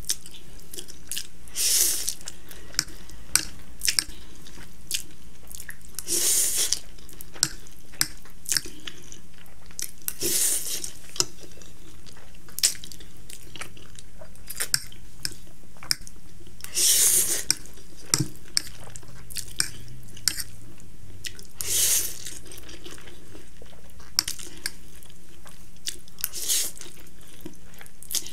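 A person eating instant noodles from a fork, close to the microphone: about six long, hissy slurps several seconds apart, with wet chewing and short clicks in between, over a faint steady hum.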